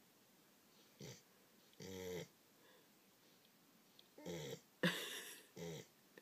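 English Springer Spaniel snoring in its sleep: five separate pitched, wheezy snores with quiet gaps between them, the loudest and rattliest about five seconds in. The uploader likens the snore to a turkey.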